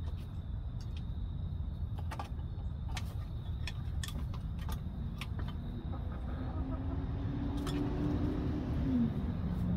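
A hen's claws clicking and scraping on the wooden perch and the coop door's frame as she climbs up and out through the open pop door, over a steady low rumble. A low hum comes in during the second half and drops away near the end.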